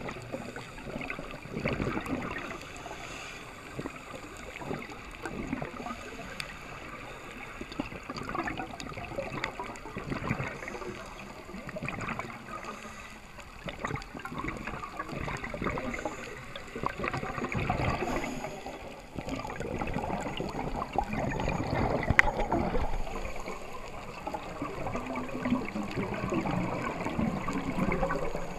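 Scuba diver's exhaled bubbles gurgling and rushing underwater, swelling and fading in surges every few seconds with each breath through the regulator.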